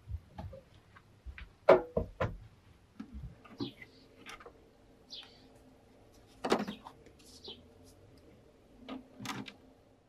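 Scattered knocks, clunks and rustles of handling as a watercolour painting is laid on the glass of an Epson flatbed printer-scanner and the scanner lid is moved. The loudest is a sharp knock about two seconds in.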